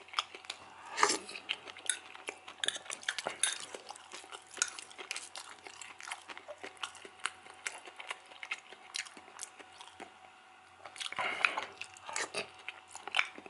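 Metal spoon clinking and scraping against an enamel saucepan as mashed potatoes and liver are mixed and scooped, in many short sharp clicks. A denser stretch of scraping comes about eleven seconds in.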